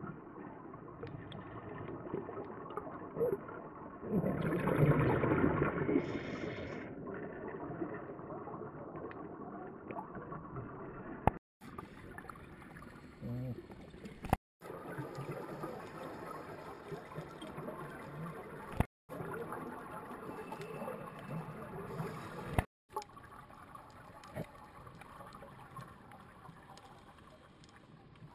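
Muffled underwater sound heard through a camera's waterproof housing, with scuba regulator exhaust bubbles gurgling, loudest about four to six seconds in. The sound cuts out briefly several times.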